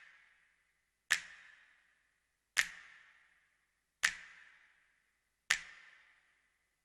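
A sharp crack repeated evenly about every one and a half seconds, four times. Each crack has a ringing tail that fades over about a second.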